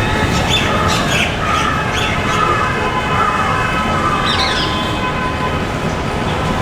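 Rose-ringed parakeets calling: a run of short repeated calls that thin out about two-thirds of the way through, over a steady low background rumble.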